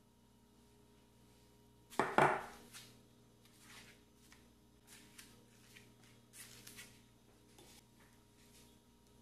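One sharp clack of kitchenware about two seconds in, then soft scattered scrapes and taps of a metal offset spatula spreading a dab of buttercream on a cake board.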